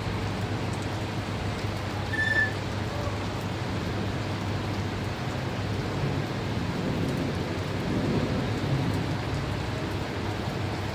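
Steady rain with a low rumble underneath, and a brief high chirp about two seconds in.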